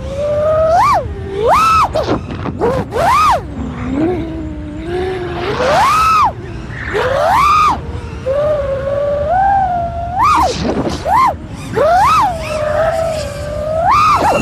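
FPV freestyle quadcopter's motors whining as the pilot works the throttle. The pitch swoops up and falls back again about ten times, over a steady rush of air noise.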